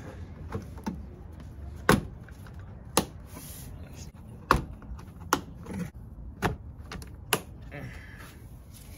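Sharp plastic clicks and knocks, about six spread over several seconds, as the Subaru Outback Wilderness's plastic engine undercover is pressed into place and its push-pin clips are snapped in.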